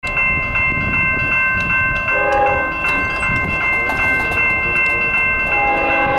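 Railroad crossing bell ringing steadily, about three strikes a second. The approaching diesel locomotive's horn sounds a short blast about two seconds in and begins a longer blast near the end, part of its grade-crossing warning.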